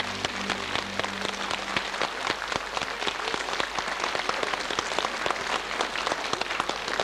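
Audience applauding, a dense steady patter of clapping, as the last sustained notes of the music die away in the first second.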